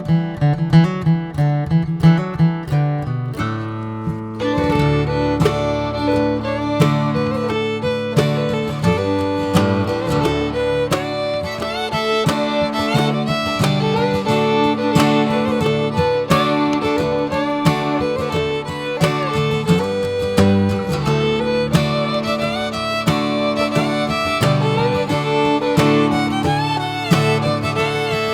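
Background music: acoustic guitar, with a fiddle and fuller accompaniment joining about four seconds in, in a bluegrass style.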